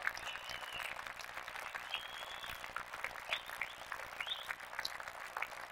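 Squash audience applauding with many scattered claps, with two brief high-pitched squeaks early on and about two seconds in.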